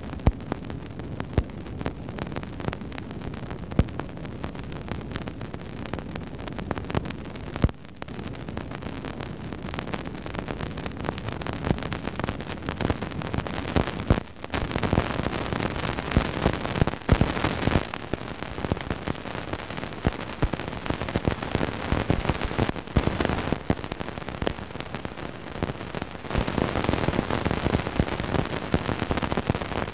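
Cassini's plasma-wave data from a faint Saturn ring-plane crossing played as sound: a steady static hiss crackling with the pops of dust particles striking the spacecraft. The pops grow denser and louder about halfway through and again near the end.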